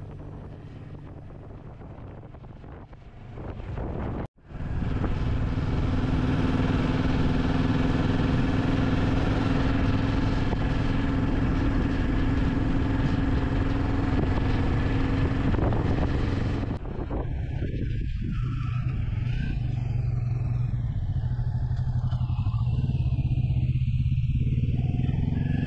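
Motorcycle engine running at road speed with heavy wind rushing over the bike-mounted microphone, coming in after a brief cut about four seconds in. About two-thirds of the way through the wind noise drops away and a lower engine note takes over as the bike slows.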